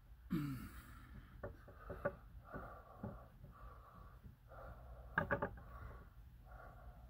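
Hands pressing and rubbing window screen down onto a spray-glued wooden board, with soft scrapes and ticks. About half a second in comes a short breathy grunt falling in pitch, and about five seconds in a quick run of three or four sharp taps.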